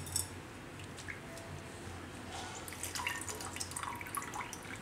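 Water squeezed by hand out of soaked soya chunks, trickling and dripping into a small steel bowl. A brief metal clink right at the start.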